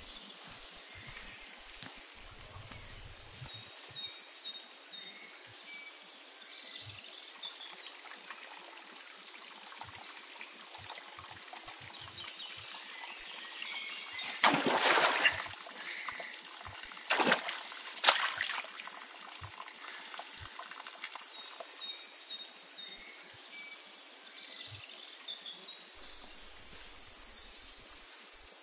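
Water trickling in a forest stream, with short bird chirps now and then. About halfway, two loud splashes of water come a few seconds apart.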